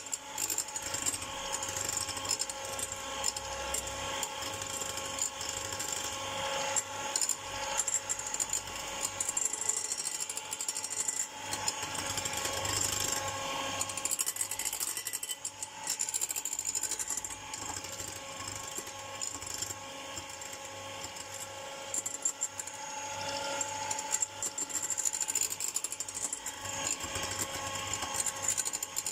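Electric hand mixer running steadily, its twin wire beaters whipping egg whites into stiff meringue in a glass bowl, with frequent light clicks and rattles of the beaters against the glass.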